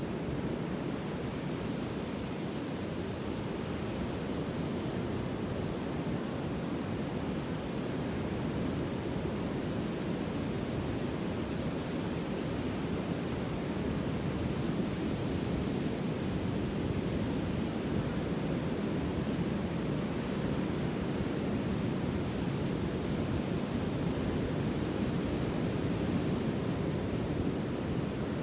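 Sea surf: a steady rush of breaking waves, swelling slowly and growing a little louder over the second half.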